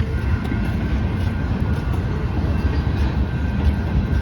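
Steady low rumbling noise, irregular and heavy in the bass, with no distinct events.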